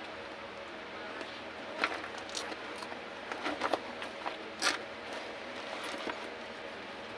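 Small clicks and scrapes at irregular intervals over a steady background hum.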